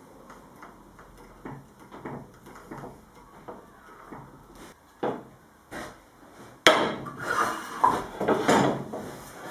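Metal woodworking clamps being set and tightened on a glued-up wooden paddle blank. Light clicks and wooden knocks at first, one stronger knock about halfway through, then louder clattering and scraping of metal clamp bars against wood from about two-thirds of the way in.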